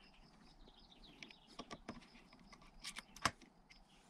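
Faint, scattered light clicks and ticks of a screwdriver and small metal parts, as screws are worked out of the top plate of a HEUI diesel injector held in a vise. The sharpest click comes a little over three seconds in.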